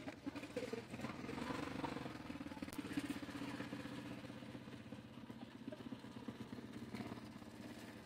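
A small engine running steadily, faint, a low hum with rapid pulsing.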